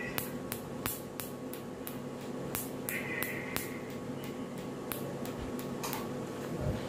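Tattoo machine buzzing steadily as its needle is worked into the skin over an old tattoo to remove it, with sharp clicks about three times a second.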